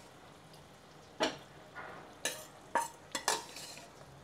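Boiled mutton liver pieces being added to hot, oily masala in a steel pan: about six sharp clinks of a utensil against the pan, starting about a second in, over a faint sizzle.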